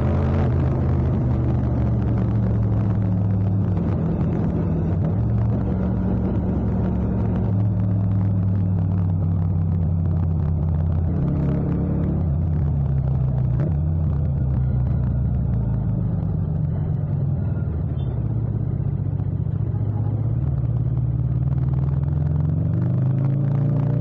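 Yamaha MT-07's parallel-twin engine running at low to moderate revs while the motorcycle is ridden. Its pitch drops over the first couple of seconds as the bike slows, holds fairly steady with small dips, and rises near the end as the throttle is opened.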